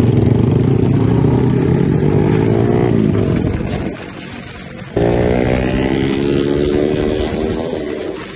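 Small motor scooter's engine accelerating from a stop, its pitch rising steadily for about three seconds and then easing off. After a sudden break about five seconds in, it is heard accelerating again with rising pitch, fading slightly near the end.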